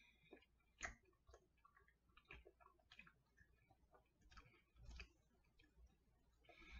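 Faint, irregular mouth clicks and soft chewing of a fig bar being eaten, against near silence.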